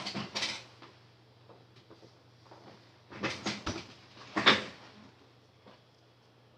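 Clicks, knocks and scraping of handling on an electronics workbench, in two short clusters, the loudest knock about four and a half seconds in. A low steady hum runs underneath.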